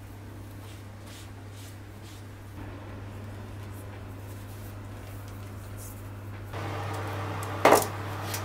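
Soft, faint strokes of a pastry brush dabbing egg wash onto puff pastry, over a steady low hum. Near the end comes a single short, loud knock of a metal baking tray being set down.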